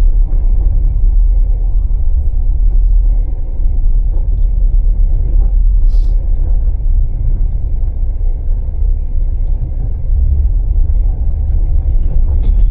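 Passenger train running along the rails, heard from inside the carriage as a steady low rumble, with one sharp click about halfway through.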